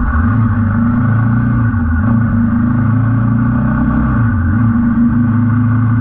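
Royal Enfield Himalayan 450's single-cylinder engine running steadily under way, its note dipping briefly twice.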